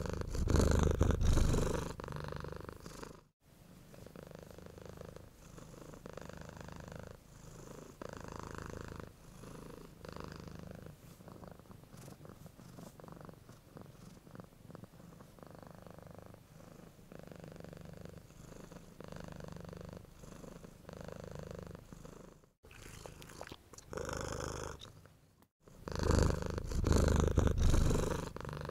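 Lion roaring in loud, deep bouts near the start and again near the end, with quieter low rumbling between; the sound breaks off abruptly a few times.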